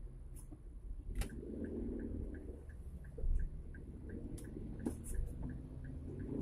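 A vehicle's turn-signal indicator ticking evenly, about three to four ticks a second, over the low rumble of the engine and road, with a few sharp knocks.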